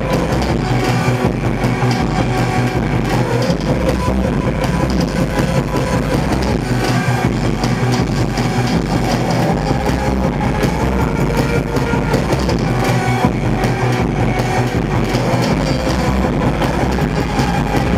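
Live rock band music played loud and steady, with guitar over drums beaten on an electronic drum kit.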